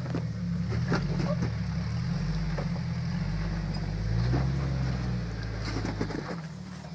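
Lifted Jeep's engine running at low rock-crawling revs as it climbs a sandstone ledge, rising briefly about four seconds in and easing off near the end, with a few sharp knocks.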